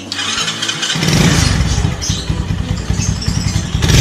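Rusi Korak 110 motorcycle's 110 cc single-cylinder engine starting about a second in, with fast, uneven low firing as it catches and runs. It is being started to check for vibration after its engine mounts were replaced.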